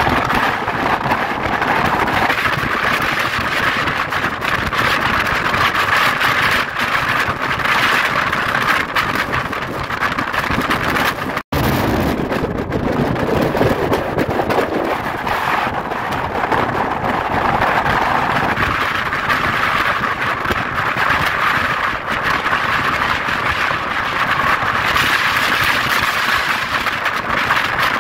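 Strong wind blowing hard, a loud, steady rushing noise with no let-up, cutting out for an instant about eleven and a half seconds in.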